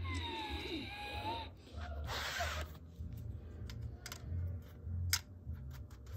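Plastic LEGO pieces clicking and scraping as a hand moves a minifigure and a brick-built toy truck, over a low steady hum. A short sliding whistle-like tone comes at the start.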